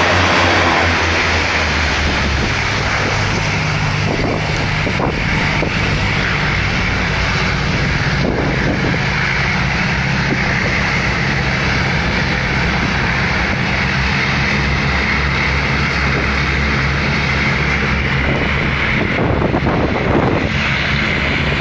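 Passenger hovercraft's engines and twin ducted propellers running with a loud, steady drone as the craft leaves the shingle beach and heads out over the sea, with wind buffeting the microphone.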